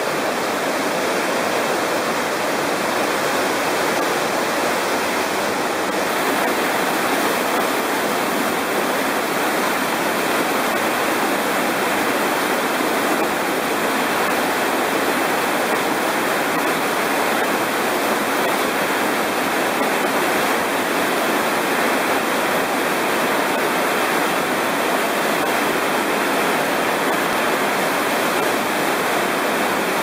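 Kozjak waterfall plunging into its pool: a steady, loud rushing of falling water that does not let up.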